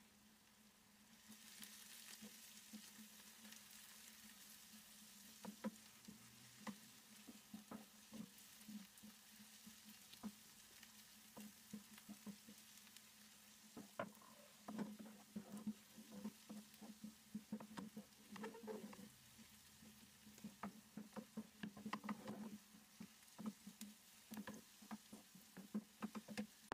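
Chopped onions sizzling faintly in a frying pan, the wooden spoon stirring and knocking against the pan; about halfway through the stirring takes over as a run of quick small knocks. A low steady hum sits underneath.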